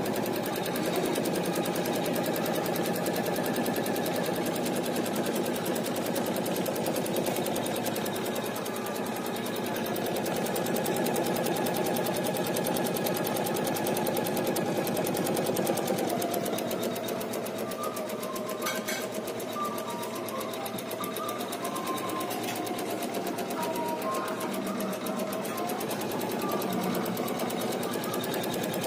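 Usha 450E computerized embroidery machine stitching a satin-stitch paisley design, with a fast, steady needle chatter and motor hum. Its pitch dips lower for a while in the second half.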